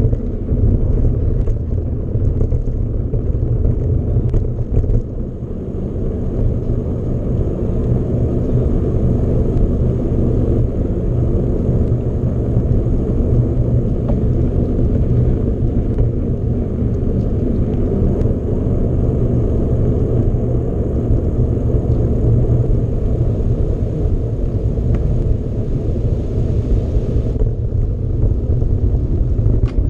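Steady low rumble of riding noise on a moving mountain bike: wind buffeting the camera microphone, mixed with tyres rolling.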